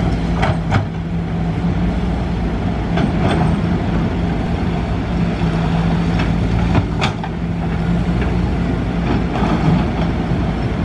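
Kobelco SK200 excavator's diesel engine running steadily under work, with a few sharp knocks and clatters as its bucket digs through river gravel.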